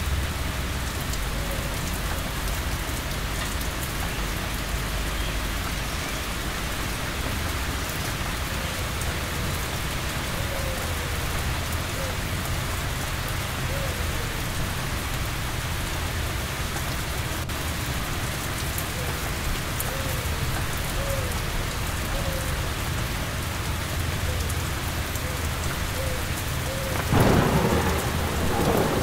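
Steady heavy rain with a low rumble of thunder beneath it. Near the end a louder thunderclap sounds for about a second and a half.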